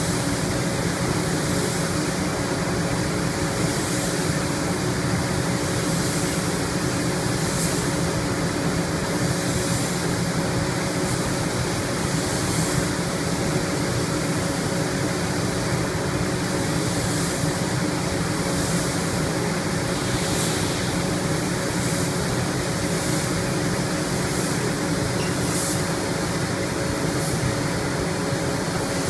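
Paint spray gun hissing as colour coat is laid on, the hiss swelling and easing in short passes every second or two, over a steady mechanical drone with a few held tones.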